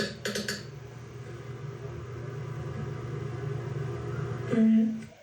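A steady low rumble, then about four and a half seconds in a short, loud fart that holds one pitch for about half a second.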